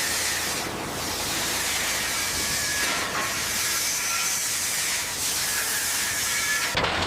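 A steady hissing noise, like a spray or jet of air or steam, that cuts off near the end.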